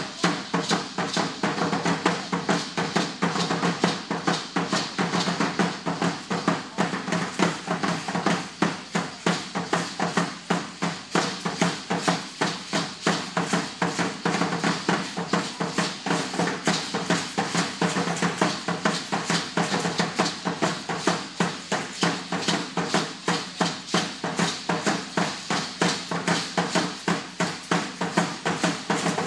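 Aztec danza drumming on upright huehuetl drums, a steady driving beat of about three strokes a second, with a shaking hiss of rattles over it.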